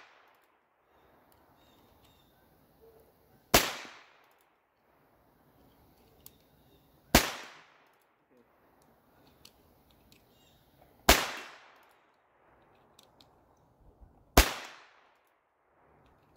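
Four revolver shots fired one at a time, three to four seconds apart, each sharp crack trailing off in a short echo.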